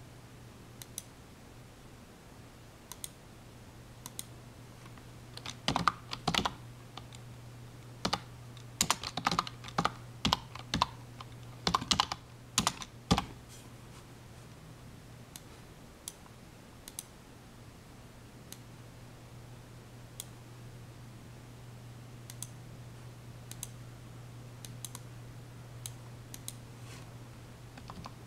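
Typing on a computer keyboard: scattered single key clicks, with a run of quicker, louder keystrokes from about six to thirteen seconds in.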